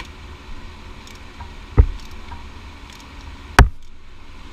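Rear brake caliper piston being wound back in with a wind-back tool: a few faint metal clicks and two short, loud knocks, one just under two seconds in and the other about two seconds later.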